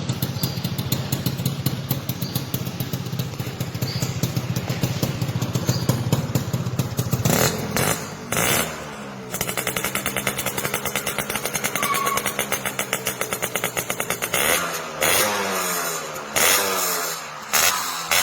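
Two-stroke Suzuki Crystal motorcycle running through a gutted ('bobok') exhaust with a crisp, rattly note. It holds fast, even revs at first, then has its throttle blipped several times, settles to a steadier idle-like run, and is blipped again repeatedly near the end.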